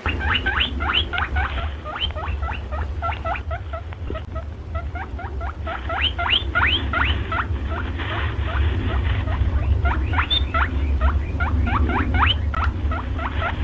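Rabbit squeaking: a quick, continual run of short, high squeaks, each falling in pitch, several a second, over a steady low rumble.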